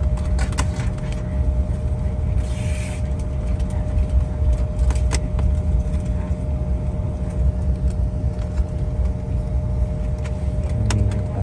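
Cabin noise of a jet airliner taxiing: a steady low rumble with a constant engine hum, scattered light clicks, and a brief hiss about two and a half seconds in.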